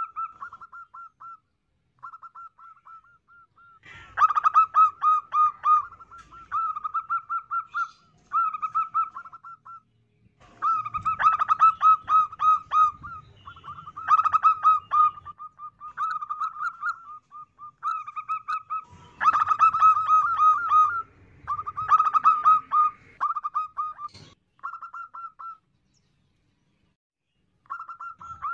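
Zebra dove cooing: rapid strings of short, high staccato notes in phrases of one to two seconds, with brief gaps between them and a pause of about two seconds near the end.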